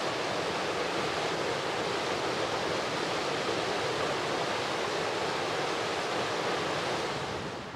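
Steady rushing of flowing river water, fading out near the end.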